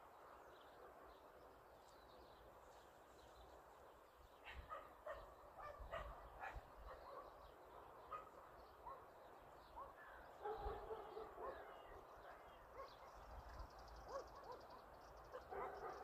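Cretan hound puppies baying and yelping on a hare's trail, faint and far off, in many short repeated calls starting about four seconds in.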